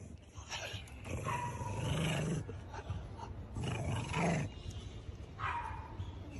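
A dog growling in three bouts, a long one and two shorter ones, while biting a sausage held out in a gloved hand.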